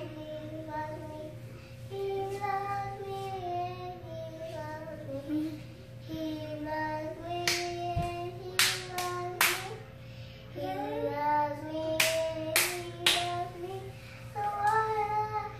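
A child singing a melody, with two sets of three handclaps in the middle, over a steady low hum.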